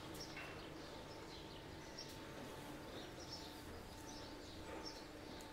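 Quiet farmyard ambience: small birds chirping now and then over a faint steady hum.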